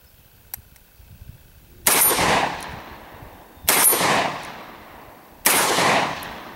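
Remington Model 11 12-gauge semi-automatic shotgun firing three shots in steady succession, a little under two seconds apart, each shot trailing off over more than a second.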